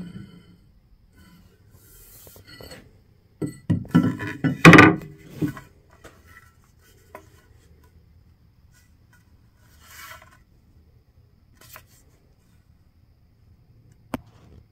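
Handling noise as a double-bit axe is turned over in the hand: a cluster of knocks and rubbing about four to five seconds in, then fainter rubs, and a single sharp click near the end.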